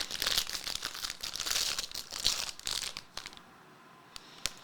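Trading card pack wrappers crinkling and tearing as packs are opened by hand, dying down a little after three seconds in, with a few light clicks near the end.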